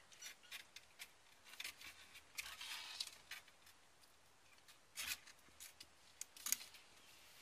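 Faint, irregular scratching and clicking of small kittens scrabbling about on a blanket against the wooden sides of their box. The short scratches come scattered throughout, a few of them louder.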